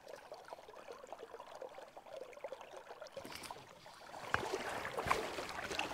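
River water flowing and trickling, growing a little louder in the second half, with a few light knocks or splashes near the end.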